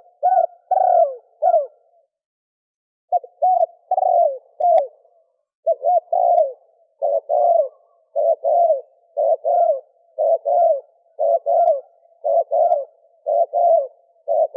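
Spotted dove cooing in repeated phrases of two or three low notes. The phrases pause briefly about two seconds in, then come back in a steady rhythm of about one phrase a second. This is the 'thổ kim' coo, used as a lure call to draw in wild male and female doves.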